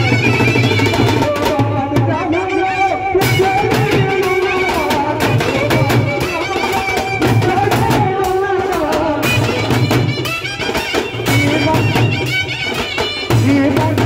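Loud street band music: a clarinet plays a bending folk melody over a drum line of hanging bass drums, snare drums and a crashed cymbal.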